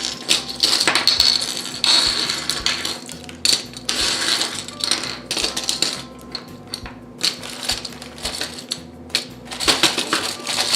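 Metal pin-back buttons clinking and clattering against each other as they are handled and gathered into a bag, with irregular sharp clicks throughout.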